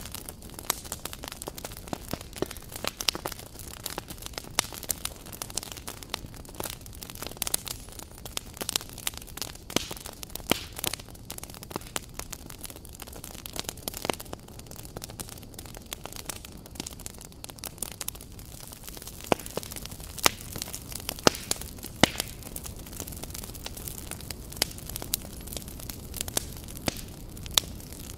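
Small wood fire crackling: irregular sharp pops and snaps over a steady hiss, a few louder pops in the second half.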